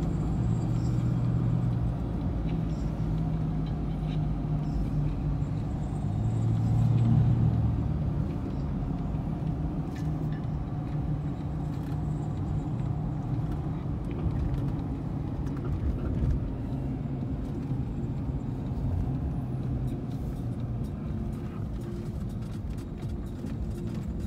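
Car's engine and tyre noise heard from inside the cabin while driving: a steady low rumble, with the engine note swelling briefly twice.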